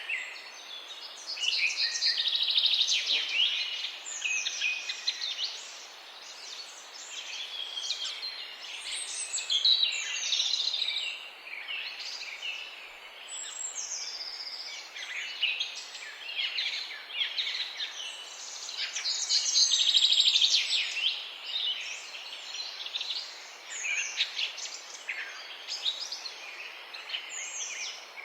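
Several songbirds singing and chirping together in a morning chorus, with dense overlapping high chirps and trills that swell and ebb in bouts, over a faint steady background hiss.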